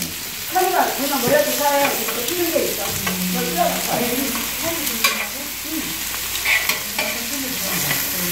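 Pork belly sizzling on a large flat steel griddle, with a few short clicks of metal tongs against the plate as pieces are turned.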